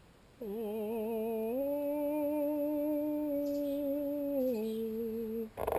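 A man humming a short three-note fanfare: a wavering first note, then a higher note held for about three seconds, then a step back down before it stops.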